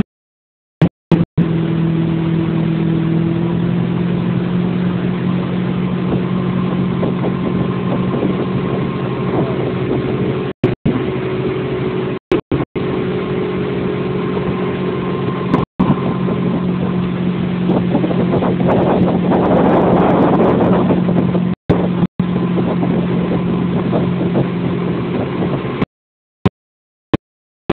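Motorboat engine running steadily, towing a wakeboarder, broken by several short gaps of silence. A rushing noise swells about two-thirds of the way through, and the engine sound cuts off shortly before the end.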